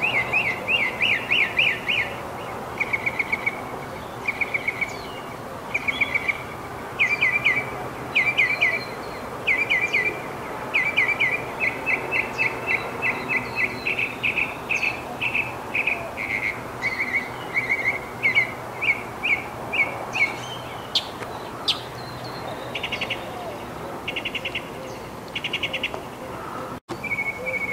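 Northern mockingbird singing: a near-continuous run of short chirped phrases, each note repeated several times in quick succession before the bird switches to a different one.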